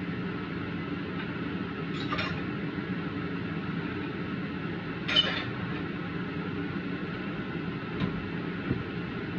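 Steady low whirring rumble of a kitchen range vent fan running over a wok on the stove, with a few light metallic clinks, the loudest about five seconds in.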